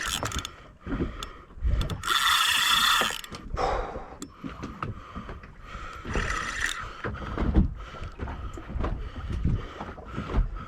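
Spinning fishing reel whirring in two short bursts with a ratcheting, geared sound, among scattered knocks and thumps of gear on the boat.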